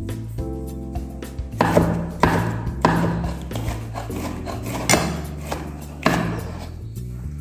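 Chef's knife slicing a green bell pepper into strips on a wooden cutting board, the blade knocking on the board several times at uneven intervals, over background music.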